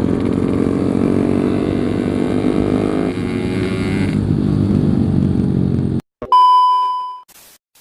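Yamaha RX King two-stroke single-cylinder engine running steadily while being ridden, cutting off abruptly about six seconds in. A short steady electronic tone follows, then silence.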